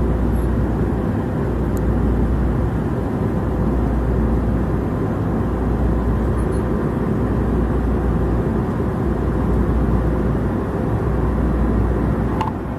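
Jet airliner cabin noise in flight: a steady roar of engines and rushing air with a faint constant hum, and a brief click near the end.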